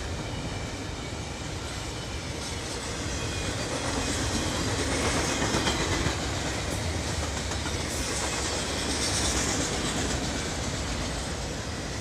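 Double-stack container cars of a CSX intermodal freight train rolling past, a steady rumble with wheels clacking over the rail joints, growing somewhat louder about four seconds in.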